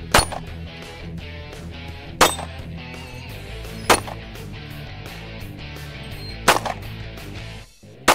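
Handgun shots, fired one at a time about every two seconds, with a fifth shot right at the end.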